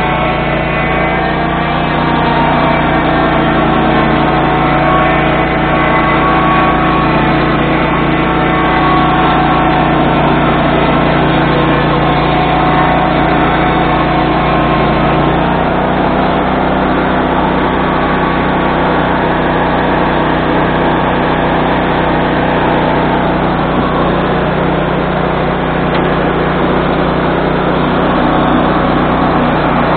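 Swing-blade sawmill's gas engine running steadily, driving the circular blade. About halfway through, the engine note shifts and then holds at the new pitch.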